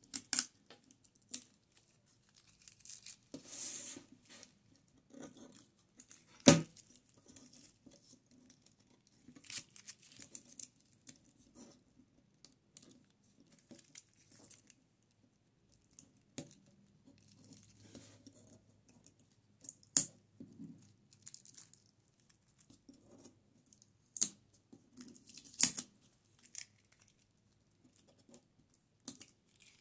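Heat-resistant tape being picked at and peeled off sublimation paper wrapped around a ceramic tile. Intermittent tearing and crinkling of tape and paper, broken by sharp clicks, the loudest about six seconds in.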